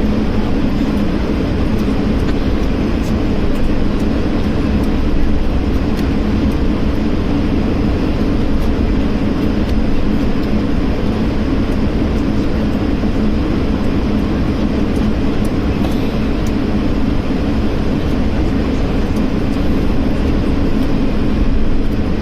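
Steady jet cabin noise inside an Airbus A220-300, the Pratt & Whitney PW1500G geared turbofans and airflow making a constant rushing roar with a low hum.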